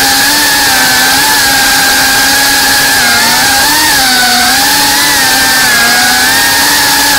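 GEPRC Cinelog 35 FPV drone's brushless motors and propellers whining steadily, heard from the onboard camera, the pitch wavering up and down as the throttle changes through turns.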